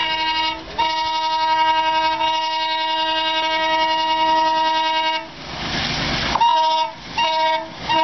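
Truck-type air horn fitted to twin WDG3A diesel locomotives, honking in repeated blasts: a short blast, a long one of about four seconds, a brief burst of rushing noise, then two short toots and another long blast starting near the end.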